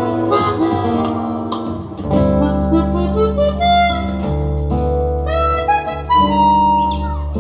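Harmonica playing a melody of sustained notes, with a downward bend near the end, over acoustic guitar and a steady bass line.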